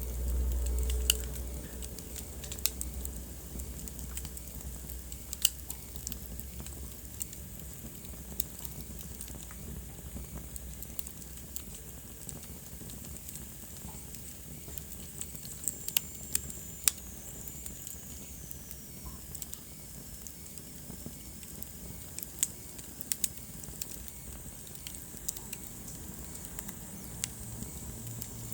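Wood fire burning in a fireplace, crackling with scattered sharp pops over a low steady rumble that is louder for the first two seconds. A faint high whistle falls in pitch about sixteen seconds in.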